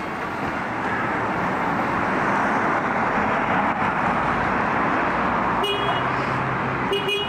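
A road vehicle passing by, its tyre and engine noise swelling for several seconds and then easing off, with two short tones near the end.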